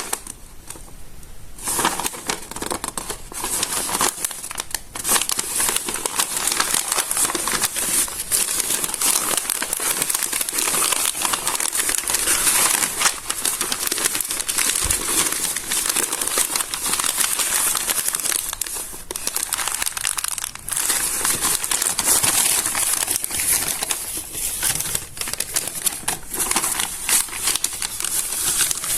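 Stiff, water-damaged notebook pages crinkling and crunching as they are smoothed out by hand. The crinkling is quieter for the first couple of seconds, then runs on continuously as a dense stream of small crackles.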